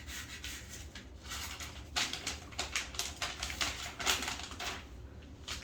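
Gift wrapping being torn and rustled off a present: a dense run of crackling and tearing, busiest in the middle seconds.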